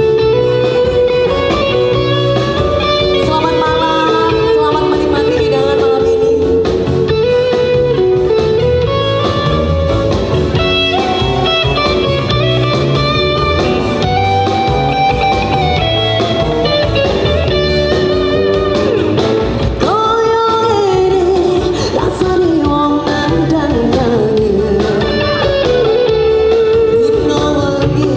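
Live band playing a song, with electric guitar, bass and drum kit, and a singer's voice over it through the sound system.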